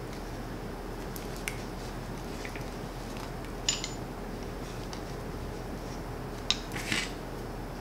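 Black iron pipe fittings handled and turned in the hands, giving a few light metallic clinks and clicks, the sharpest near the middle and two more near the end, over a steady low room hum.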